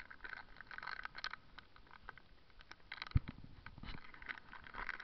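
BMX bike rolling along a concrete sidewalk, giving a run of light irregular clicks and rattles. One sharp thump a little after three seconds in.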